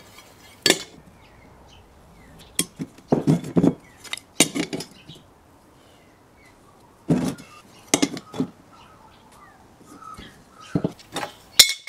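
Scattered light clinks and knocks of steel square tubing and a marking square being handled and set down on a workbench, in short bunches with quiet gaps between.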